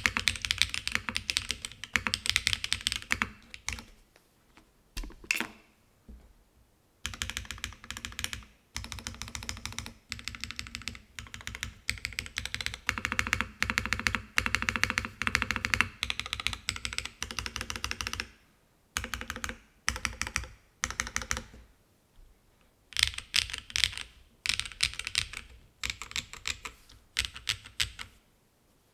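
Typing on a FLO-AT custom mechanical keyboard, with Cera R3 switches and DCS-profile keycaps on a full aluminium plate, gasket-mounted with no foam. Fast runs of key clacks come in bursts with short pauses between them, and the typing stops shortly before the end.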